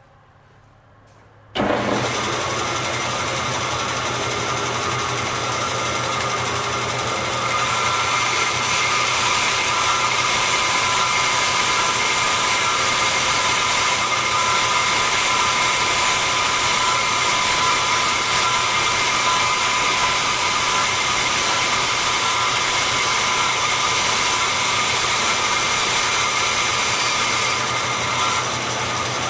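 Vertical bandsaw running steadily with a whine of several steady tones, cutting small black Delrin parts free of their carrier strip. It comes in suddenly about a second and a half in, grows louder about seven seconds in while the blade is cutting, and eases back near the end.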